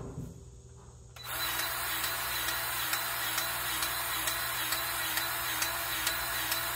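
Milwaukee cordless grease gun starting about a second in and running steadily, clicking a little more than twice a second as it pumps grease into the tamper's squeeze-cylinder bushing fitting. A short knock just before it, at the very start.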